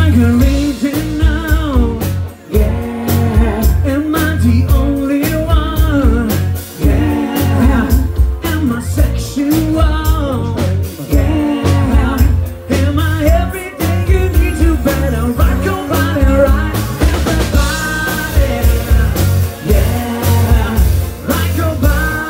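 Live pop band playing at loud stage volume: a male lead singer and a female singer sing the melody over electric bass and a steady beat.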